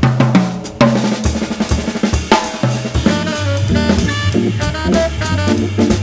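Live jazz on Hammond organ and drum kit: busy snare, bass drum and cymbal playing over organ bass notes, with held organ chords coming in about halfway through.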